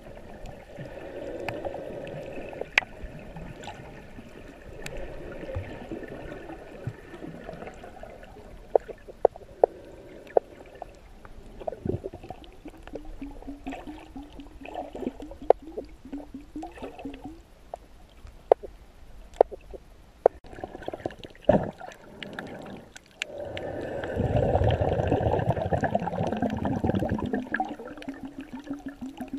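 Water gurgling and sloshing, heard underwater, with many scattered sharp clicks. A louder rush of water lasts about three seconds near the end.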